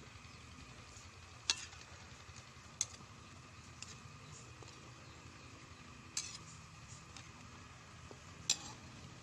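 Metal spoon stirring chicken feet in a metal wok, scraping the pan with a handful of sharp clinks where the spoon strikes the wok's side.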